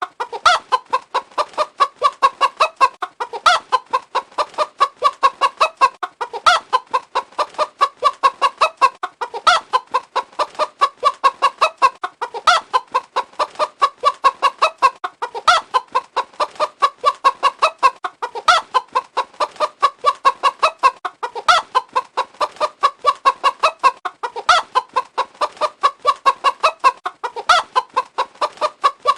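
A hen clucking: rapid short clucks, several a second, with a louder cluck that comes back about every three seconds in an even repeating pattern.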